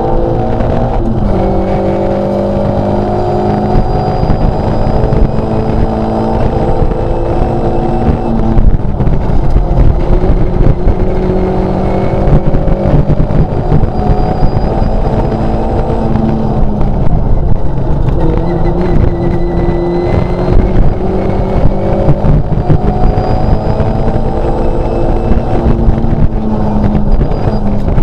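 Škoda 130 LR rally car's rear-mounted four-cylinder engine pulling hard, heard from inside the cabin. The pitch climbs, drops back with each gear change and climbs again, over heavy road and tyre rumble.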